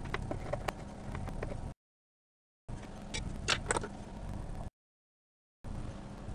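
Pen-like tool scraping and clicking on aluminium foil as the foil is pressed down and scored, with scattered short clicks and a louder cluster of scrapes about halfway through, over a steady low hum. The sound comes in stretches of about two seconds, each cut off into dead silence.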